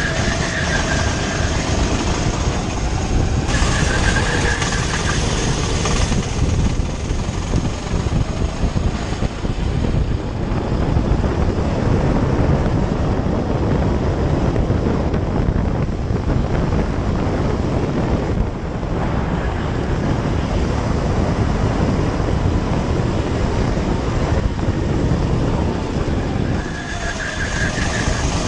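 Petrol racing go-kart's engine running hard at speed, heard close up from the driver's seat, with wind buffeting the camera microphone. Thin tyre squeals come in through the corners, near the start, a few seconds in, and near the end.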